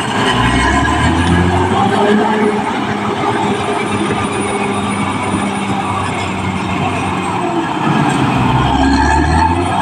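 Caterpillar D6R crawler bulldozer working: its diesel engine runs loud under load, the engine note dipping and recovering near the start and again near the end, over the continuous clatter and faint squeal of its steel tracks.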